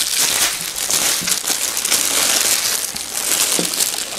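Clear plastic film wrapping crinkling and rustling as hands rummage through it in a cardboard box, a steady dense crackle.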